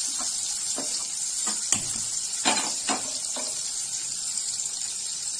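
Steady high sizzle of rui fish pieces shallow-frying in a little oil, with a few short sharp ticks in the first half.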